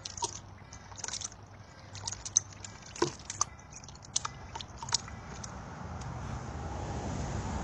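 A fishing rod and spinning reel being handled, giving scattered light clicks and taps. A steady rushing noise grows louder in the last few seconds.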